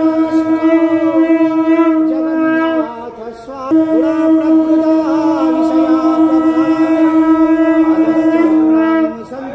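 Conch shell (shankha) blown for the lamp offering: one long, steady held note with a strong buzzy overtone stack. It breaks off briefly about three seconds in, resumes, and stops near the end.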